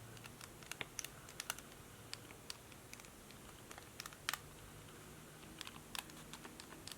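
Typing on a laptop keyboard: quiet, irregular key clicks, several a second in uneven runs, over a faint steady hiss.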